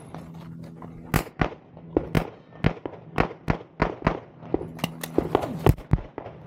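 Competition pistol fire from a 9mm Glock 34: rapid shots, mostly in quick pairs a fraction of a second apart, starting about a second in after a short pause, as the shooter engages targets during a timed stage.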